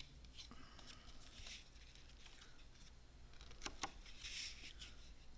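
Faint rustling and tapping of cardstock being handled and pressed on a tabletop, with a few small clicks, the loudest about four seconds in, followed by a brief paper slide.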